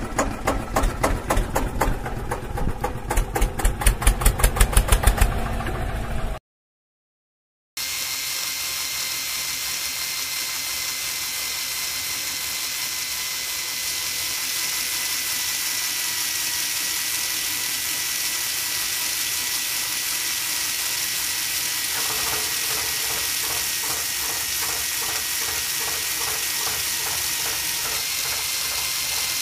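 Small DC gear motors on a homemade model tractor whining steadily as its motor-driven auger drills into sand. About three quarters of the way through, a rhythmic gear chatter joins the whine. It opens with a few seconds of a rhythmic beat and a brief dropout.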